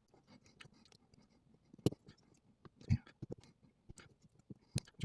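Small metal clicks and scrapes as a tool works the circlip off the back of a padlock's lock core. The sharpest clicks come about two seconds in and near the end.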